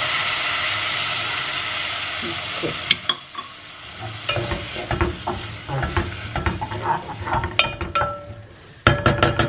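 A little water poured into a hot pot of sautéed vegetables and ground coriander masala sizzles loudly, the hiss dying away over about three seconds. Then a wooden spatula stirs the vegetables, scraping and knocking against the pot, with the strokes quickening near the end.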